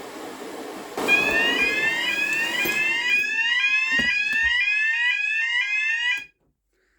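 Fire alarm sounders going off in a rapidly repeating rising sweep tone, several of them out of step with each other, as a heat detector trips the system. A rushing noise runs under the first couple of seconds, and the sounders cut off suddenly about six seconds in.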